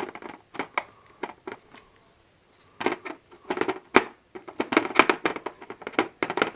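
Irregular clicking and clattering of the TV's stand base pieces being handled and fitted together, with a sharp knock about four seconds in.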